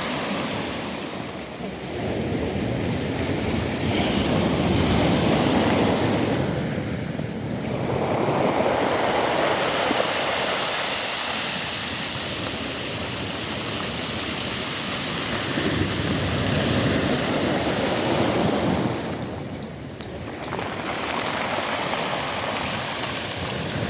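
Sea waves breaking on a pebble (shingle) beach, with the hiss and wash of water over the stones. The sound surges and eases every few seconds as each wave comes in and draws back.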